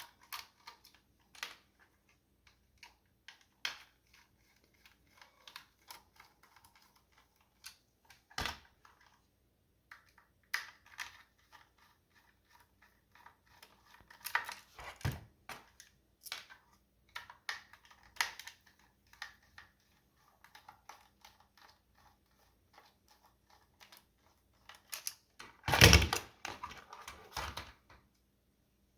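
Light plastic clicks and taps from handling a 1:24 scale plastic slot car while its body is being opened, with a few sharper knocks and a louder clatter of knocks about 26 s in.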